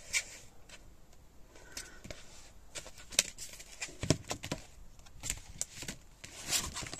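Handling of a plastic document folder and its papers: scattered rustling with irregular clicks and light knocks.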